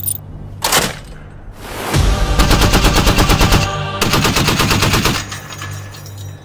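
A 12.7 mm heavy machine gun on a remote weapon station firing two rapid bursts, the first about two seconds in and the second right after it, each over a second long. Steady background music plays under it.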